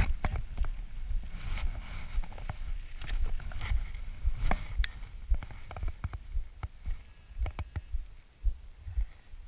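Mountain bike rolling over a dirt and gravel track: irregular low thumps and rattles from the bike taking the bumps, with sharp clicks scattered throughout.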